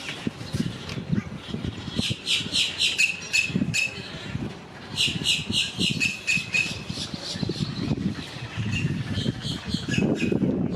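A wetland bird calling in two rapid series of short, sharp repeated notes, each series trailing off in a few lower notes, over a low uneven rumble.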